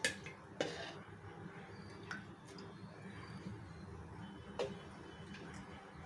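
Oil heating in a nonstick kadai on a lit stove: a few faint, irregular ticks and clicks over a low steady hiss.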